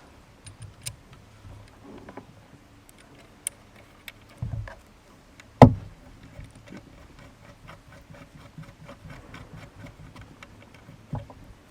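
Hands handling radio gear on a table while a coax cable is plugged into the transceiver: a run of small clicks and ticks, a dull thump about four and a half seconds in, a sharp knock a second later, and two more knocks near the end.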